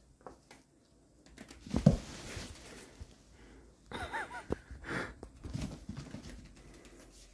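Two puppies play-fighting: a heavy thump about two seconds in, then short, high, arching yips around four and five seconds in, among the scuffle of paws and bodies on bedding.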